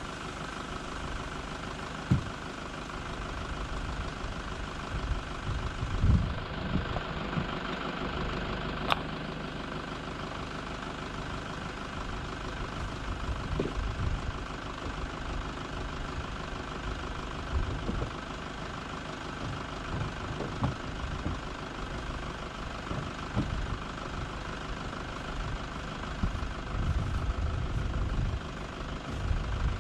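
Wind buffeting the microphone in low gusty rumbles, with a few sharp knocks as the sit-on-top kayak's hull is turned over and set down on its wheeled trolley.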